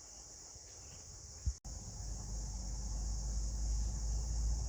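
Steady high-pitched chorus of insects, crickets or similar, shrilling without a break. About a second and a half in there is a single knock, then a loud low rumble comes in under the chorus and runs on.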